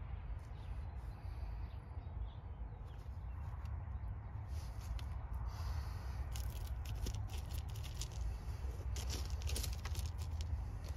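Gloved hands working sealing paste onto a concrete wall: faint scrapes, rustles and clicks that grow busier from about halfway through, over a steady low rumble.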